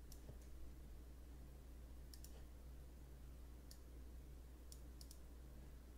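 Faint, scattered clicks of a computer mouse and keyboard, sometimes in quick pairs, over a low steady hum.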